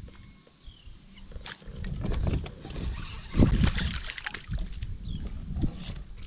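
A hooked crappie splashing and thrashing at the water's surface as it is reeled up to the boat, the loudest splash about three and a half seconds in, over a low rumble.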